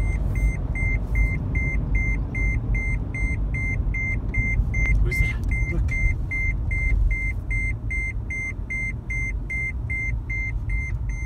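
Road and engine rumble inside a moving car's cabin, with a high electronic beep repeating evenly about three times a second, like a vehicle warning chime.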